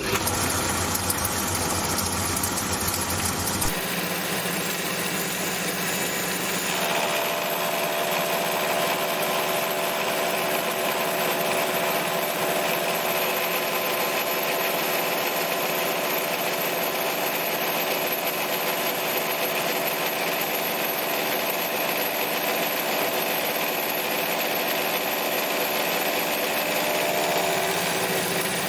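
Home-built Gingery milling machine running steadily, its cutter milling an aluminium clamp jaw. The tone of the running machine shifts about four seconds in and again near seven seconds.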